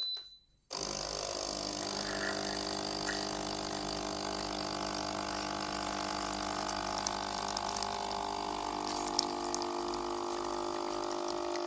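Capsule espresso machine's pump starting less than a second in and running steadily with a hum and hiss, pushing hot water through a coffee capsule to brew a shot.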